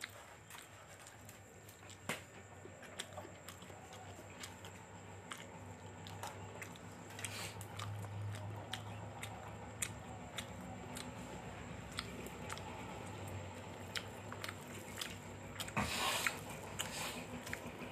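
A person eating: chewing food with many small, irregular mouth clicks and crunches. A louder, brief noisy sound comes about sixteen seconds in.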